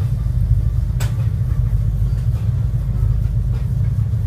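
Steady low rumble of a boat's engine heard from on board, with one sharp click about a second in.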